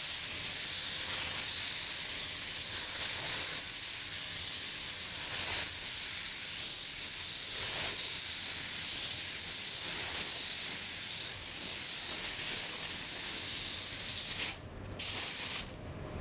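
Gravity-feed spray gun applying a full coat of clear coat: a steady hiss of compressed air and atomised lacquer. Near the end the trigger is let go, pulled again for a short burst, then released.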